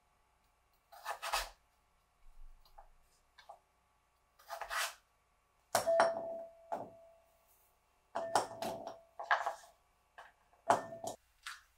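Raw butternut squash cubes dropped into a glass bowl, each landing with a clink and a short ringing of the glass, about six times in the second half, the first ring the longest. Before that, two short brushing scrapes, typical of a knife sweeping cut pieces across a wooden board.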